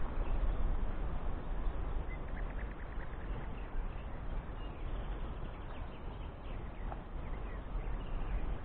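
Wind buffeting the microphone: a steady low rumble, with a faint run of short ticks about two seconds in.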